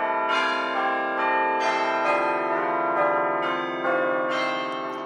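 Bells chiming: a series of struck bell notes at different pitches, each ringing on under the next.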